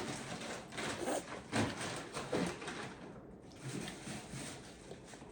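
Soft handling noises: a few light knocks and rustles, as of food and its container being handled at a table.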